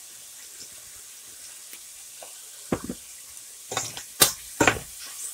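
Shrimp and mixed vegetables sizzling in oil in a stainless steel frying pan, a steady hiss. A little under three seconds in, a metal spoon starts stirring, scraping and knocking against the pan about six times, the loudest strokes near the end.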